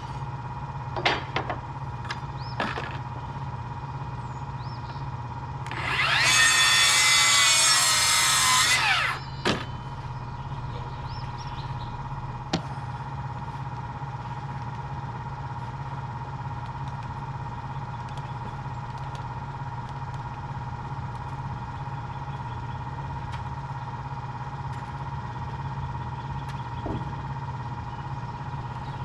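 Power saw cutting once through a red oak 1x10 siding board, for about three seconds, with the motor's pitch shifting as it cuts. A few sharp knocks come before and after the cut, over a steady hum.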